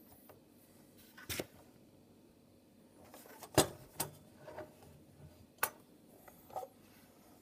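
Handling noise from a metal caulking gun loaded with a plastic sealant cartridge as it is held and turned: about half a dozen light, separate clicks and knocks, the sharpest about three and a half seconds in.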